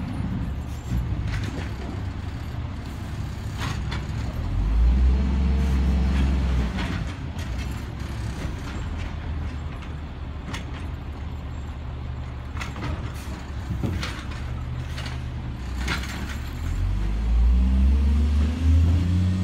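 Automated side-loading garbage truck (a second-generation Autoreach) dumping a curbside greenwaste cart with its arm. The diesel engine idles steadily and revs up twice to drive the hydraulics, about five seconds in and again near the end. Scattered knocks and clatter come from the cart and arm over the hopper.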